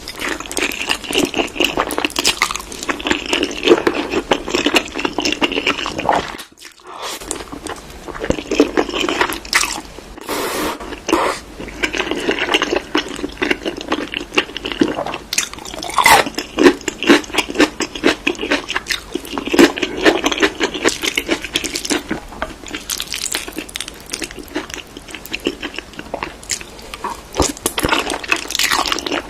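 Close-up eating sounds of spicy Korean food: continuous wet chewing with crunchy bites, briefly pausing about six and a half seconds in.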